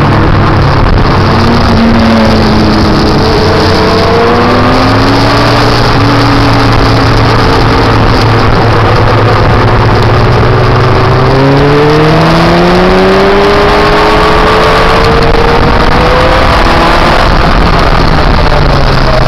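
Motorcycle engine pulling through the gears, its pitch rising several times and breaking off at each shift, under heavy wind rush on the microphone at riding speed.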